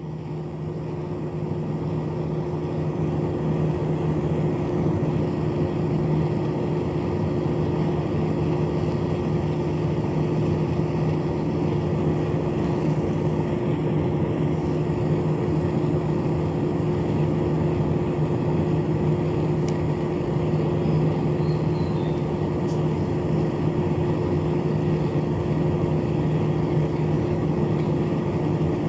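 Small battery-powered fan motor inside a cardboard toy air conditioner, spinning up in the first seconds and then running with a steady hum.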